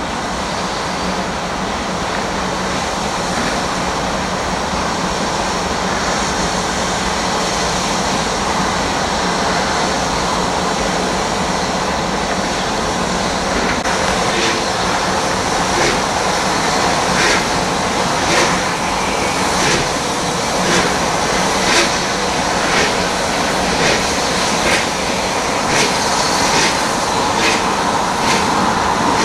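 Bulleid Merchant Navy class three-cylinder steam locomotive 35028 Clan Line starting away with its train. There is a steady hiss of steam, and from about halfway through the exhaust beats come in, about one a second and slowly quickening as it gathers speed.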